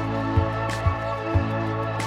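Background music with a steady beat of about two beats a second over sustained instrumental tones.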